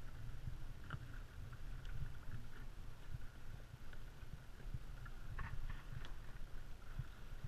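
Wind rumbling on the microphone and small waves lapping against a plastic kayak hull, with a few faint knocks.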